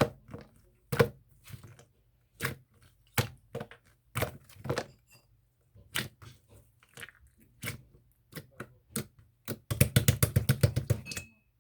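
Jelly-textured slime being squeezed and poked, giving sharp, irregular clicks and pops, with a dense run of crackling clicks about ten seconds in.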